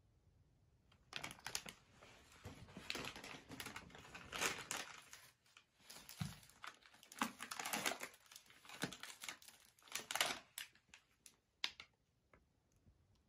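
Paper or plastic gift packaging being crumpled and rustled in irregular handfuls, starting about a second in and stopping near the end.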